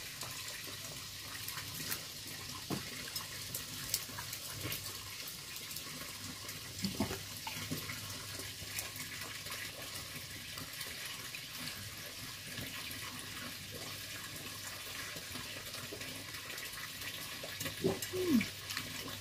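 Steady hiss of running water in the background, with a few faint clicks of fingers and plates as people eat rice by hand.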